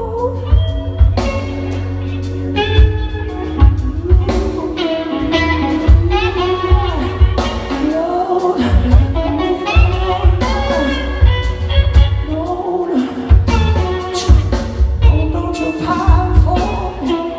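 Blues-rock band playing live: a male lead singer's voice over electric guitar and drums, with regular drum hits, heard from the audience.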